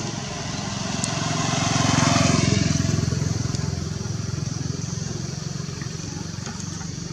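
A motor vehicle's engine, its low hum and noise swelling to a peak about two seconds in and then slowly fading.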